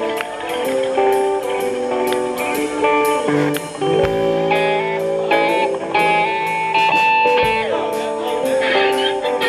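Live blues band playing an instrumental passage: a handmade box-bodied electric guitar picks out a melody line over a drum kit keeping a steady beat.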